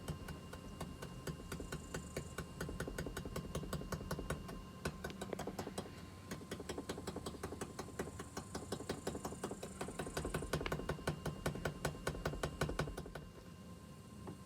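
Rapid, even rattling of loose plastic trim, about five clicks a second, over low road rumble inside a Tesla Model 3 cabin at speed. This is the dashboard/fender rattle that shows up at 50–70 mph. It dies away about a second before the end.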